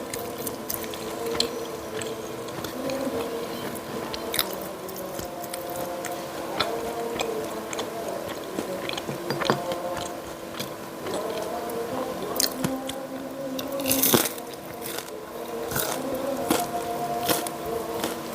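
Close-miked chewing and crunching of crispy fried jalakotek pastries, with sharp crackles of bites scattered throughout.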